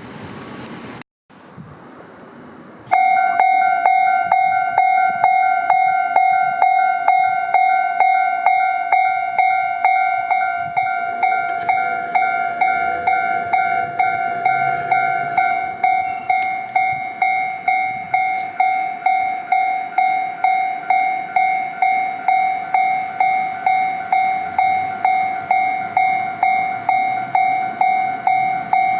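Japanese railway level-crossing warning bell starting about three seconds in, ringing a steady, evenly repeated ding at about two strikes a second: the signal that a train is approaching and the barriers are coming down.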